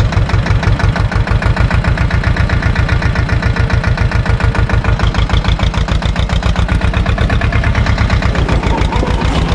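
Same tractor's diesel engine running steadily, an even, rapid chug with no change in speed.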